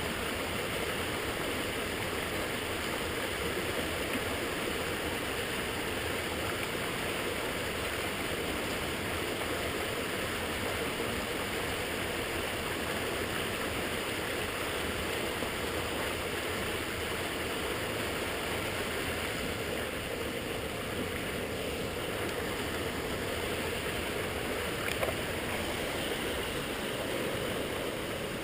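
Rushing water, steady and unbroken, with a single brief click near the end.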